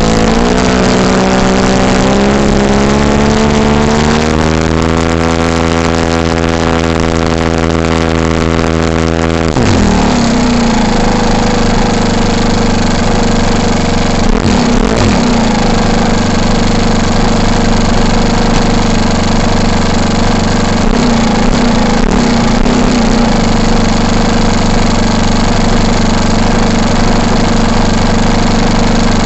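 Four-stroke glow engine of a NexSTAR 46 RC plane running on the ground. It runs at a steady, higher speed that edges up in pitch over the first few seconds. About ten seconds in it is throttled back with a quick drop in pitch, then runs steadily at the lower speed.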